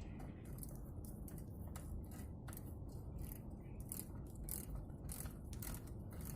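Irregular light metallic clicks and scrapes of hand work on a car's brake caliper and its guide pin, several a second, over a low steady hum.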